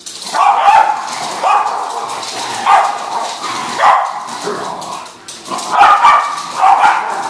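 Small dogs barking repeatedly during rough play, sharp barks coming about once a second.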